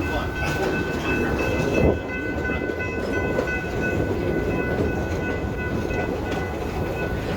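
Amusement park train cars rolling along the track with a steady rumble and clatter. A thin high tone of several pitches at once is held from the start until near the end.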